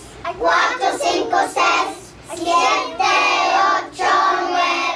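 A group of young children singing a song together, in phrases with held notes.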